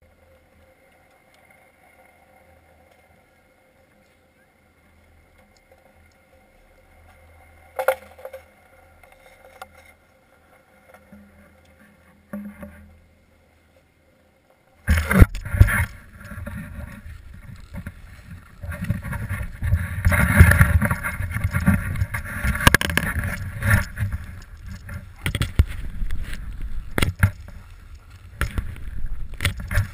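Faint steady hum with a couple of knocks, then about halfway through a sudden loud rushing and scraping of edges sliding and carving over packed snow downhill, with wind buffeting the microphone in uneven gusts.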